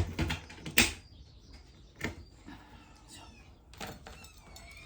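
A few sharp knocks and clicks of handling, the loudest a little under a second in, with faint, high, falling kitten mews in between.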